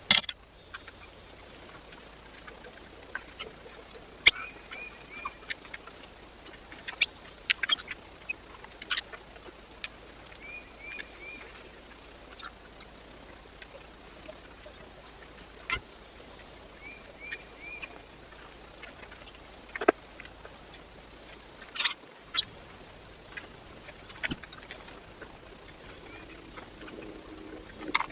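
Birds at a feeder: irregular sharp taps and knocks, with short calls in quick runs of three heard three times, over a steady faint hiss.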